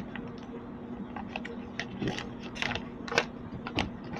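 A sheet of paper being folded and creased by hand: a scatter of short, irregular crinkles and taps, over a low steady hum.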